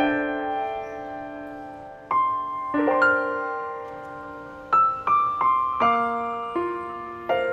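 Slow, gentle piano music: chords and single notes struck every second or so, each ringing on and fading away.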